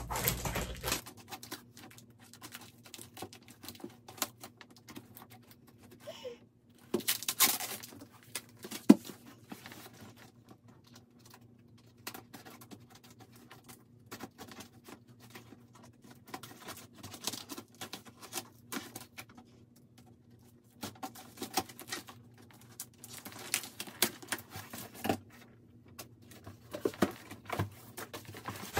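Scissors cutting packing tape on a cardboard shipping box, with irregular clicks, scrapes and rustles as the box is handled and turned. Near the end its flaps are pulled open.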